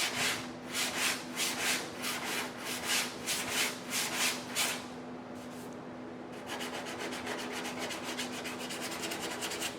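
Hand sanding block scraping back and forth over guide-coated auto bodywork, about three strokes a second. After a short pause about five seconds in, the strokes come back faster and shorter in an even rhythm, over a steady low hum.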